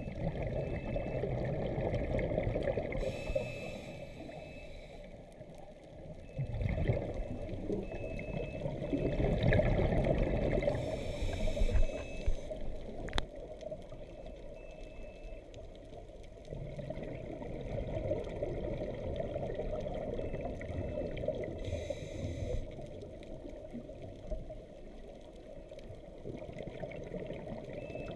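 Muffled underwater rumble picked up through a camera housing, broken three times by bubbling bursts from a scuba diver's exhaled breath.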